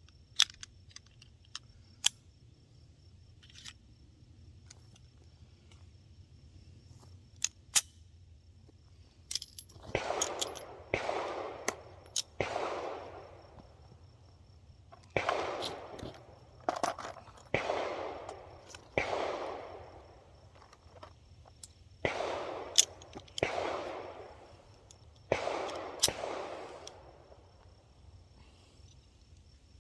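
A few sharp metallic clicks, then about a dozen gunshots in quick clusters, each with an echoing tail.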